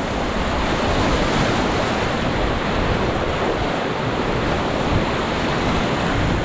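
River water rushing steadily around a raft in a rapid, with wind buffeting the microphone.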